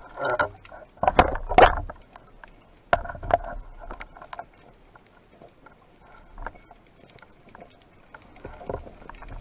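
Wooden speargun fired underwater, heard as a cluster of loud knocks and clicks in the first two seconds and a sharp crack about three seconds in, followed by softer scattered clicks and water noise.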